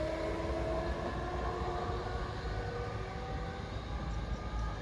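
Siemens Vectron electric locomotive drawing away, its traction whine sounding as several tones that slide slowly down in pitch and fade as it recedes, over a low rumble.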